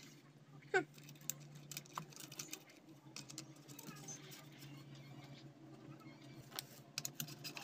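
Faint clicks, taps and scrapes of small parts being handled as a cap is fitted on an electric wood cutter's motor housing, over a steady low hum. A short falling squeak sounds about a second in.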